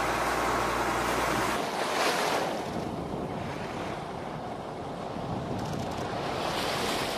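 Open-sea water and wind noise: choppy waves washing and wind buffeting the microphone. A low steady hum runs underneath for the first second and a half, then cuts off.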